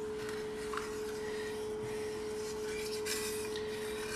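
A spoon stirring curry in an enamelled cast-iron Dutch oven, with soft rubbing and light scrapes against the pot, over a steady hum.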